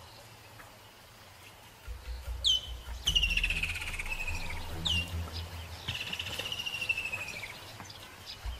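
A bird calling twice, each call a short, sharp downward note followed by a long, slowly falling whistle. A low rumble runs underneath.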